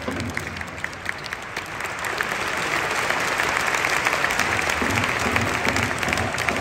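Football stadium crowd applauding, the clapping swelling about two seconds in, with supporters' chanting starting up again near the end.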